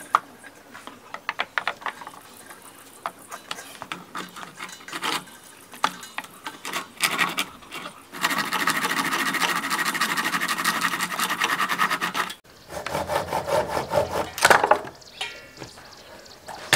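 Claw hammer knocking and prying at a small wooden bed frame to break it apart: scattered knocks, then about four seconds of dense scraping as the wood is levered, then more knocks and scraping near the end.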